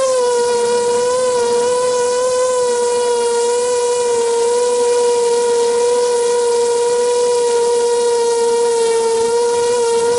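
ZMR250 quadcopter's brushless motors and propellers whining at a steady pitch in flight, the pitch wavering slightly with throttle, heard from the camera on board.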